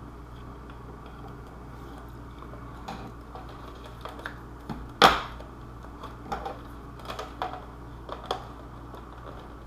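Scattered light taps and clicks from handling the costume forearm pieces while gluing them, with one much louder sharp click about five seconds in.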